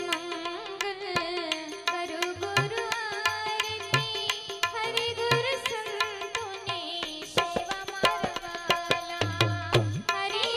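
Devotional aarti music: a keyed Indian banjo (bulbul tarang) playing a wavering melody over a steady tabla rhythm, with many quick drum strokes.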